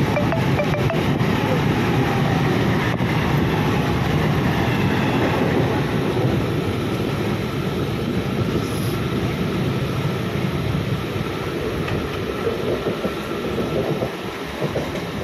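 Mumbai suburban local train (an electric multiple unit) running at speed, heard from inside the carriage through an open window: a steady rumble and rattle of wheels on track, easing a little near the end.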